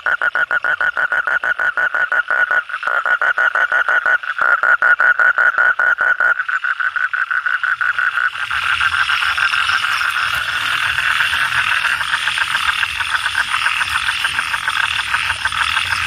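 Toad giving its male mating call: a fast, steady pulsed trill that goes on without a break. About halfway through the trill thickens, with a low rumble underneath.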